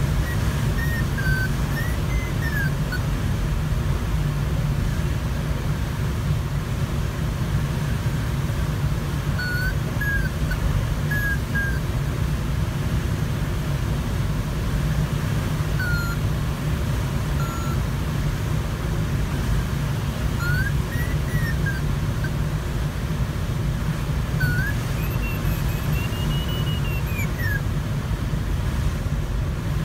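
Steady rush of airflow around the cockpit of a Sparrowhawk ultralight glider in flight. Short whistling chirps sound every few seconds over it, and one longer whistle rises and falls near the end.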